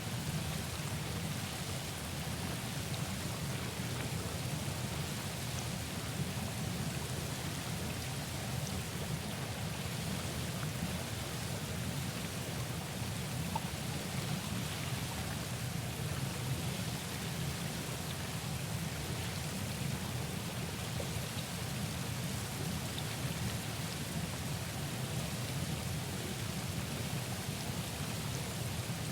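Hot tub bubbling steadily with its jets running strong: a continuous churning water noise with a deep low rumble.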